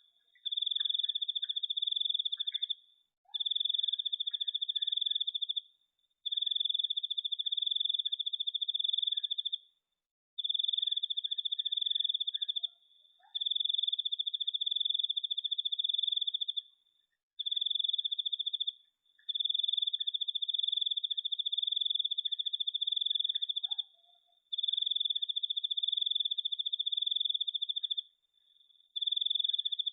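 A cricket trilling: one high, steady trill held for two to five seconds at a time, broken by short pauses, about nine bouts in all. Fainter short chirps sound underneath.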